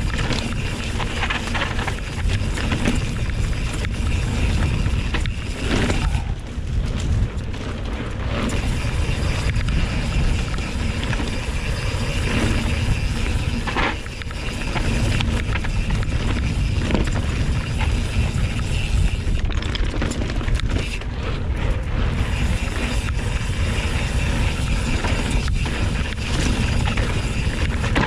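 Mountain bike riding over a rough dirt and gravel trail, heard from a handlebar-mounted camera: a steady loud rumble of wind and tyre noise, with the bike rattling and knocking sharply now and then over bumps.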